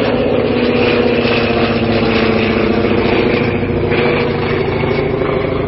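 Polikarpov I-153 Chaika biplane's nine-cylinder radial engine running steadily at power in flight, its pitch sinking slowly.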